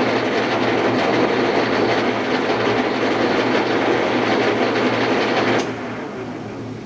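Blanchard #20-36 rotary surface grinder's chuck table drive running at its top speed of 33 RPM: a loud, dense mechanical rattle over a steady hum. It cuts off sharply about five and a half seconds in and fades as the drive runs down.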